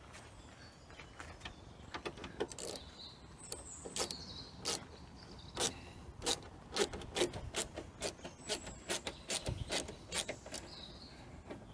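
Irregular sharp metallic clicks and taps, about one or two a second, from hand tools working a screw into a vehicle door panel.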